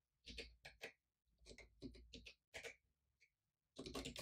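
Faint computer keyboard keystrokes: scattered single clicks, with a quicker run of keys near the end.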